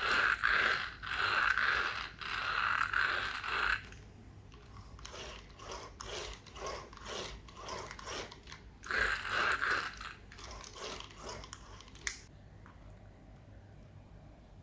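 Small RC car's electric motor and plastic gears running in short throttle bursts: three longer loud bursts with a run of quick pulses, about two a second, in the middle, stopping about twelve seconds in.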